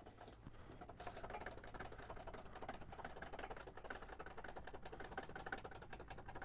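Foot pump of a motorcycle lift being worked to raise a motorcycle: a faint, fast, irregular run of clicks and ticks.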